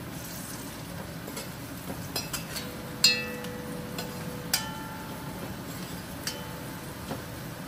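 A metal spoon knocking and scraping against a metal pot while stirring, making several sharp clinks that ring briefly. The loudest comes about three seconds in, with others about four and a half and six seconds in. A low steady hiss runs underneath.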